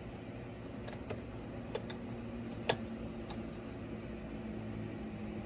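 A handful of light, sharp clicks, five in all, the loudest about halfway through, over a steady low hum.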